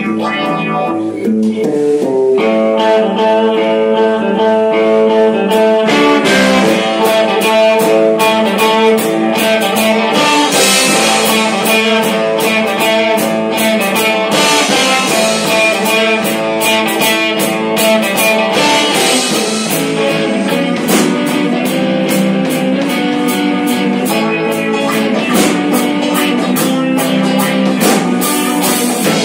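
A rock band playing live: several electric guitars playing together. About six seconds in, a steady beat of sharp hits comes in.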